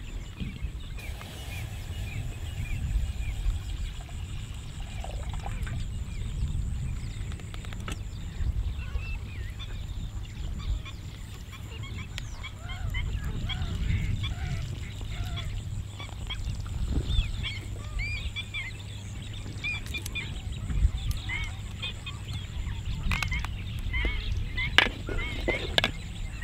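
Many birds calling at once, a busy chorus of short high chirps and calls, over a steady low rumble.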